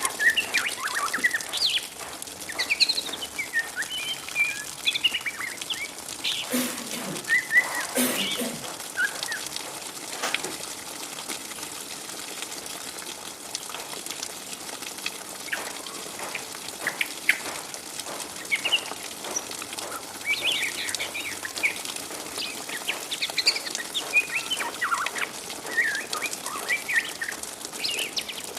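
Young white-rumped shama (murai batu, a trotol of three to four months) chattering in short, rapid twitters: the 'ngriwik' call of a juvenile. The twitters come in clusters, thin out in the middle, and pick up again near the end. Two brief rustling noises come about six and eight seconds in.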